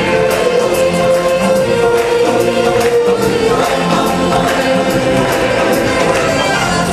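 A choir of many voices singing with musical accompaniment, holding long notes over a light percussion beat.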